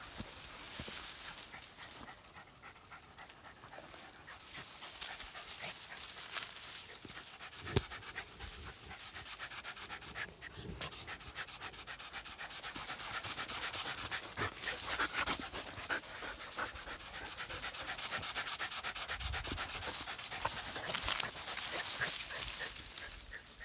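Dog panting quickly and steadily, a rapid regular rhythm of breaths that comes and goes in strength. A single sharp click stands out about eight seconds in.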